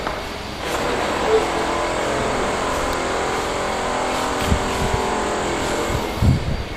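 An engine or motor running steadily, its even hum unbroken, with a few low thumps about four and a half seconds in and again near the end.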